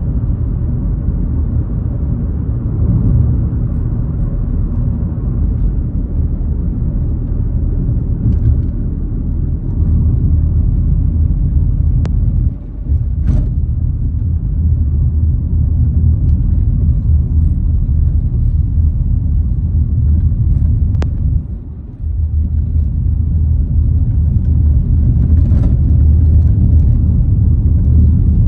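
Steady low rumble of a car driving, engine and tyre noise heard from inside the cabin. The rumble dips briefly twice, about halfway through and again near the end, and there are a couple of faint clicks.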